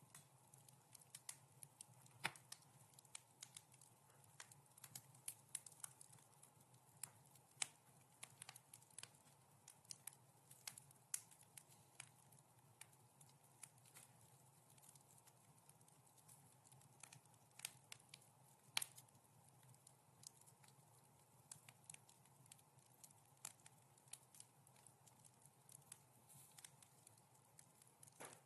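Wood fire crackling in a fireplace: irregular small pops and snaps, with one louder pop a little past halfway.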